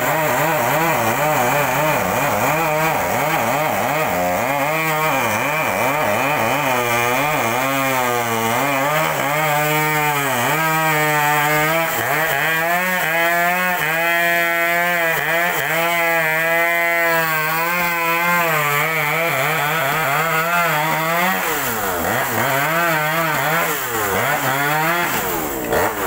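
Two-stroke chainsaw running at high speed, cutting through the trunk of a fallen tree, its engine pitch wavering as it works.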